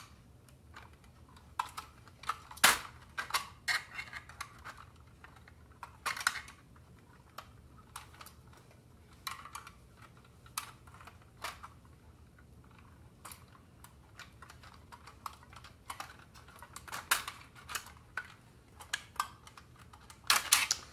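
Irregular light clicks and scrapes of a thin metal pick prying at a bent locking tab on a tin toy robot's body, working it loose.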